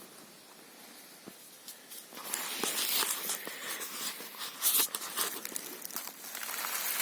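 A sharp click at the start, then, from about two seconds in, irregular rustling and crunching with many small clicks.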